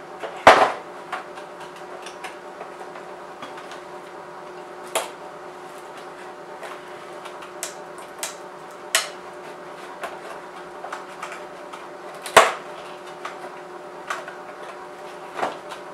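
Sharp single snaps and clacks a few seconds apart, the loudest about half a second in, with lighter ticks between, from metal snips and hand tools working on the plastic of a BMW E39 headlight. A steady hum runs underneath.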